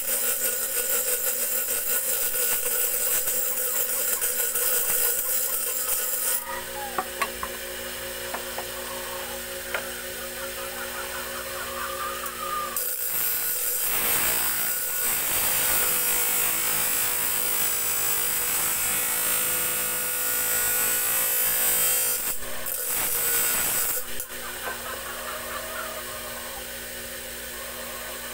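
Steel tari blade ground against a spinning grinding wheel: a hissing scrape over the steady hum of the grinder's motor. The grinding stops about six seconds in, leaving the motor hum and a few light clicks, then starts again and ends about four seconds before the end.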